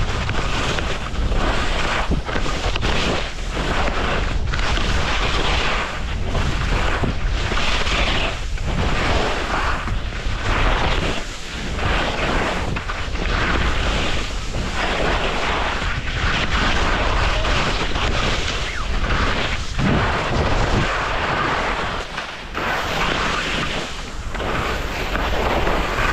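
Skis scraping and hissing over snow through a run of turns, the sound swelling and dipping about once a second, with wind rushing over the microphone.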